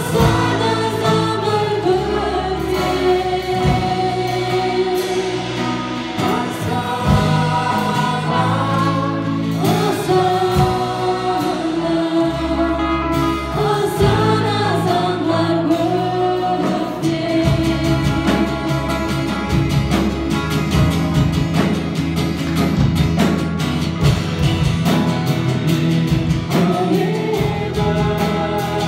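A live worship band: several singers on microphones sing a Kazakh-language Christian worship song together, accompanied by acoustic guitar.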